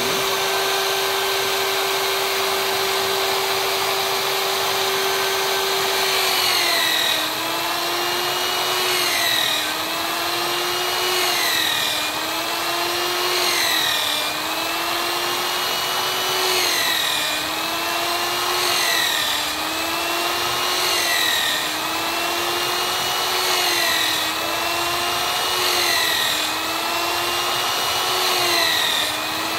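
Electric drill clamped horizontally in a bench jig, running steadily, then boring a row of holes in a wooden strip. From about six seconds in, roughly every two seconds the motor's pitch sags as the bit bites into the wood and recovers as the strip is drawn back, about a dozen holes in all.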